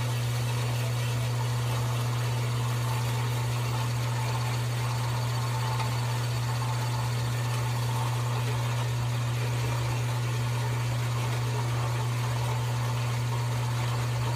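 Power saw running steadily through a 5-inch-thick aluminium bar, a constant motor hum with a hiss of cutting. The long cut is near its end.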